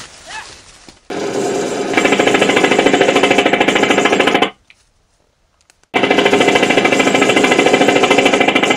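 Dubbed-in automatic-gunfire sound effect: two long bursts of rapid shots. The first starts about a second in and cuts off after about three and a half seconds. The second starts after a silent gap of about a second and a half.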